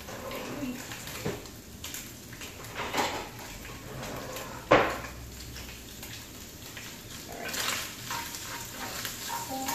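Kitchen drawer and utensils handled: scattered clinks and knocks, with one sharp knock, the loudest, just under halfway through. Near the end a spatula starts scraping and stirring diced Spam in a skillet.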